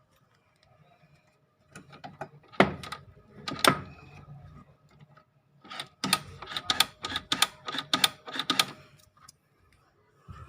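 Sharp clicks and knocks of hard plastic and metal parts being handled during work on a washing machine's drain motor. They come in two bursts, the second a faster run of rapid clicks, over a faint steady hum.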